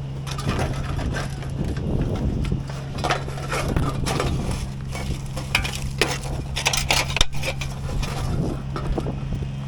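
Irregular crunching and clattering of loose storm debris over the steady hum of a running engine.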